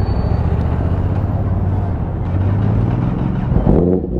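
A vehicle engine running steadily with an even, low rumble.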